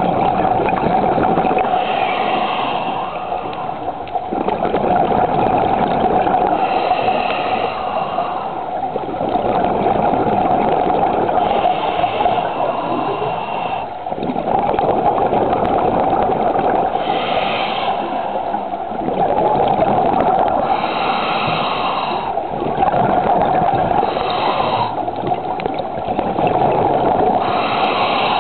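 Scuba diver breathing through a regulator, heard underwater: a steady rush of bubbles, swelling and fading, with a hiss coming back about every four seconds as each breath cycles.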